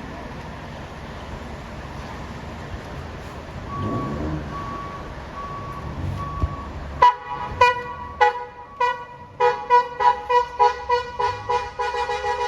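Low bus-engine rumble, then about seven seconds in a telolet 'basuri' multi-tone bus horn starts playing a tune. It sounds a run of short chord blasts that quicken into rapid toots and run into a longer held chord near the end.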